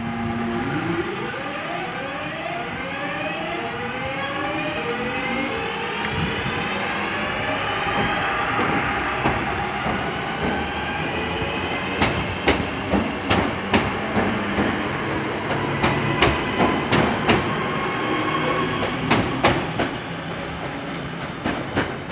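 Class 323 electric multiple unit pulling away, its traction motors whining in several pitches that climb in steps as it accelerates. About halfway through, the wheels clatter over the rail joints in a run of sharp clicks as the carriages pass close by.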